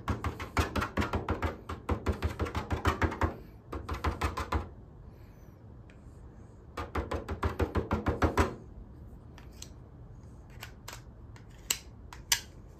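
A small spatula scraping thick screen-printing ink out of a plastic jar and spreading it onto the mesh screen: three runs of quick scraping strokes, several a second, then a few faint clicks near the end.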